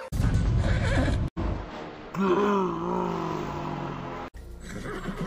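Cartoon sound track spliced from two clips: an animated horse's loud, noisy snort or neigh, then, after a cut, an animated Dalmatian puppy growling with a wavering pitch.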